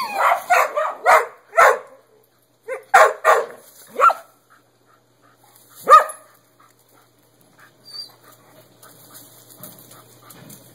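Dogs barking in quick runs of sharp barks over the first four seconds, with a single loud bark about six seconds in.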